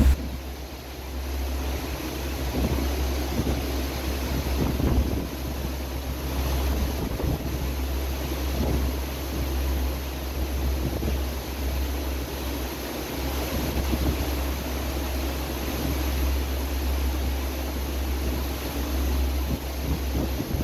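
Wind buffeting the microphone as a steady low rumble, over the rush of wind and choppy water around a boat.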